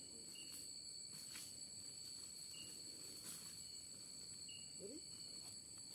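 Faint chorus of night insects trilling steadily at two high pitches, with a short high chirp every second or two and a little faint rustling of vegetation.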